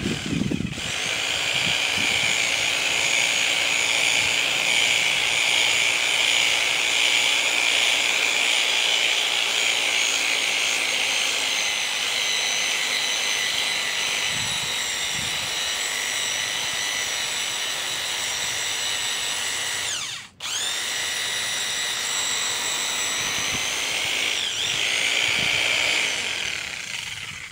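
Corded electric power tool running with a steady high whine, cutting out for a moment about 20 seconds in and starting again, then winding down near the end.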